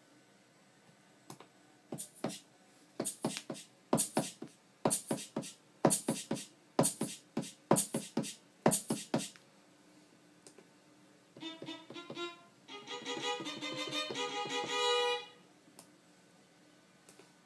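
Native Instruments Maschine MK2 drum samples triggered one at a time from its pads in an irregular pattern. After a pause, a pitched instrument sound plays a quick run of notes that stops abruptly.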